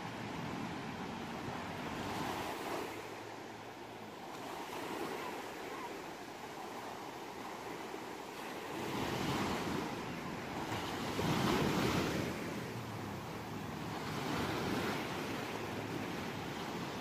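Ocean surf: waves breaking and washing in, rising and falling in slow swells, the biggest surge about two-thirds of the way through.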